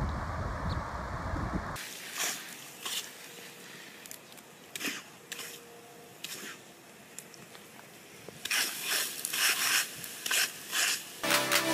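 Wind buffeting the microphone for about two seconds, then water spraying from a lawn sprinkler head: faint scattered hisses at first, then a run of louder hissing spurts, a few a second, in the last few seconds. Electronic music starts just before the end.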